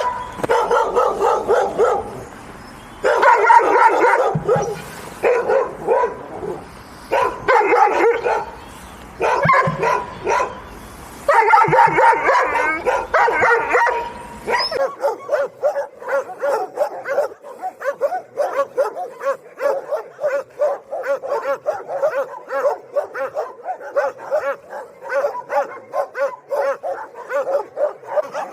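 Angry dogs barking in rapid volleys with short pauses between them. About fifteen seconds in, the recording changes to a dog barking continuously in quick short barks, several a second.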